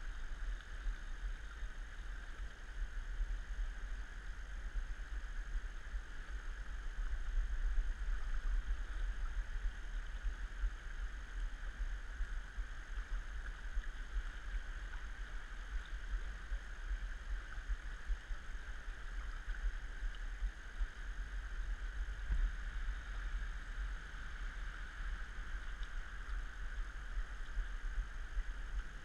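Steady rushing of fast river current over a rocky bed, with a deep rumble underneath.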